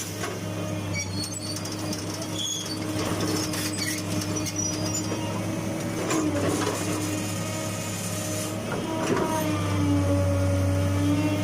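Diesel engine of a Hitachi UH045-7 excavator running under work. Its note dips briefly twice and grows louder near the end. Occasional knocks and short squeaks come from the working machine.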